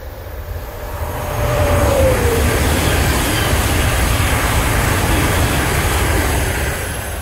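Sapsan (Siemens Velaro RUS) high-speed electric train passing close by at about 200–220 km/h: a rising rush of wheel and air noise that holds loud for several seconds and starts to fade near the end. A whine drops in pitch about two seconds in as the train nears.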